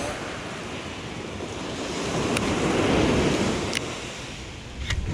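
Ocean surf washing up a sandy beach, swelling to a peak about three seconds in, with wind rumbling on the microphone. Three sharp, light clicks stand out over it.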